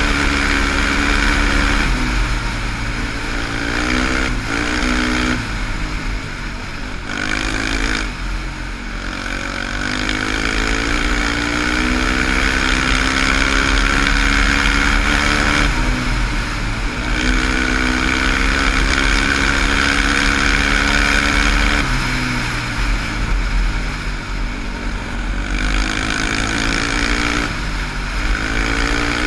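Sport quad (ATV) engine running hard under way, its note climbing again and again and dropping back as the throttle is worked and the gears change.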